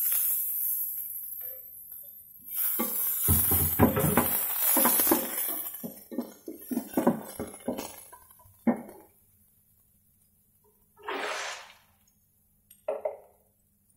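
Wooden spatula stirring and scraping in a granite-coated frying pan as chopped spring onions, garlic, ginger and black beans are stir-fried. It opens with a scrape as the onions are pushed off a wooden cutting board, then a fast run of stirring strokes, with two short scrapes near the end.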